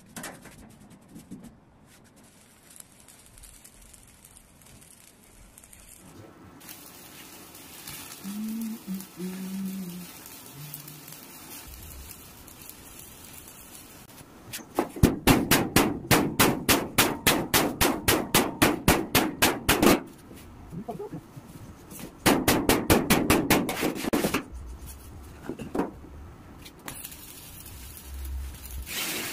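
Stick (arc) welding on steel hull plates: two bursts of rapid, evenly spaced sharp cracks, about five a second, the first lasting about five seconds and the second about two, with quieter spells between.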